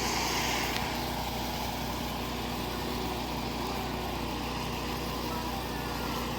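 A steady mechanical hum with a constant low tone, like a small engine or motor running.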